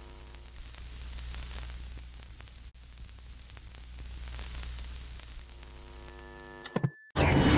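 Television static: an even hiss with a steady low hum beneath it, swelling slightly twice.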